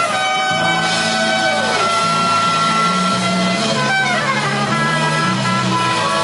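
Instrumental worship music: held notes over a steady bass line, with a few notes sliding down in pitch.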